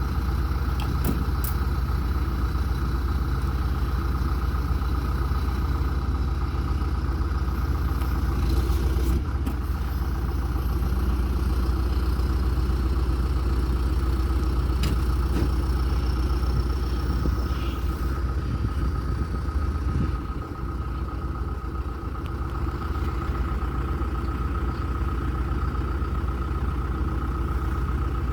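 John Deere 310SG backhoe loader's four-cylinder diesel engine running steadily, with a few light clicks and knocks over it. The engine note eases slightly for a couple of seconds about two-thirds of the way through.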